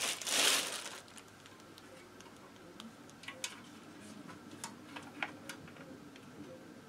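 Plastic bag crinkling for about a second as a metal moped pulley plate is unwrapped, then faint scattered clicks and taps as the metal plate is handled.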